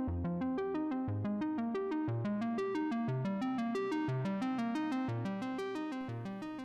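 Intro music: a fast repeating synthesizer arpeggio over a bass note about once a second, fading out near the end.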